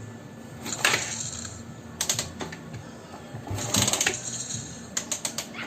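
Irregular clicks and a few short hissy bursts over a steady low hum, from around a Raider 150's KOSO big carburettor: the noise the owner likens to leaking or water, which he ties to the bike's hard starting after it got wet.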